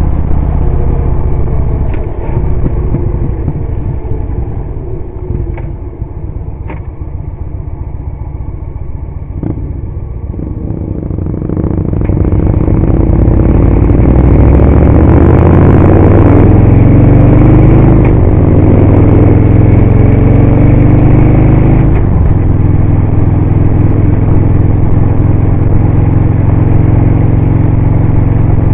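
Victory V-twin motorcycle heard from the rider's seat with wind noise: quieter through a curve for about the first ten seconds, then the engine pulls harder with its pitch climbing, shifts up suddenly about 22 seconds in, and runs on at steady speed.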